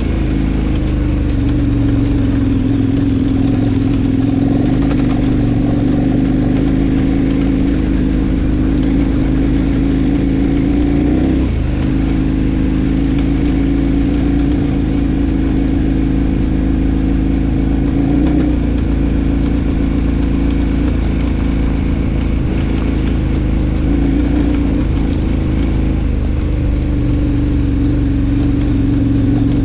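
KTM adventure motorcycle engine running at a steady pace under way. Its note dips briefly and shifts pitch a little before the middle and again twice later, as the throttle or gear changes.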